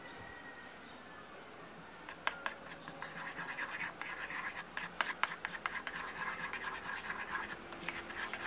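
A small utensil scraping and clicking against a miniature bowl while stirring a wet mix of mashed banana, sugar and egg. It comes in quick, irregular scratches and taps that start about two seconds in.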